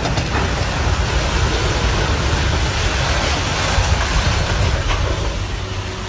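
A steady, loud rumble of a heavy vehicle running, with a hiss of noise over it.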